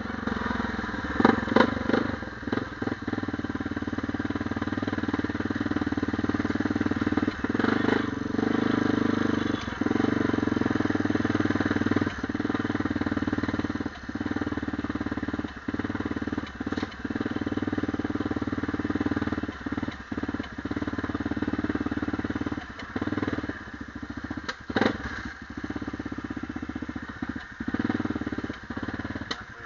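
ATV engine running under throttle on a rough dirt trail, its note dipping briefly again and again as the throttle is eased, with rattling and sharp knocks from the rack and chassis over bumps, the loudest about a second in and near the end.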